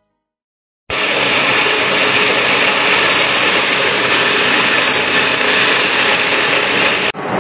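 Steel balls streaming down a metal machine chute, a loud, dense, steady rattle mixed with machine running noise. It starts about a second in and cuts off abruptly near the end, where a different machine noise takes over.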